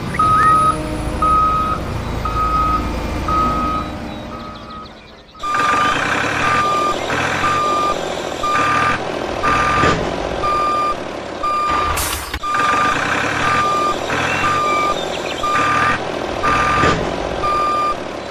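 Vehicle reversing alarm beeping steadily at one pitch, about one and a half beeps a second, over a low engine rumble; the sound drops out briefly about five seconds in and comes back louder, with a sharp swish a little past the middle.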